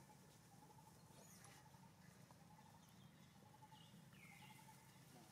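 Near silence: faint outdoor ambience with a steady, quietly pulsing trill and low hum, and a few faint chirps about four seconds in.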